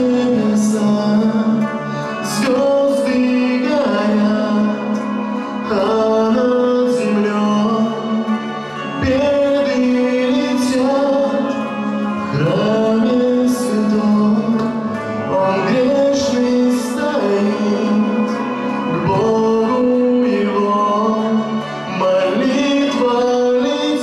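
A young man singing a slow song into a microphone over backing music, holding long notes and gliding between them.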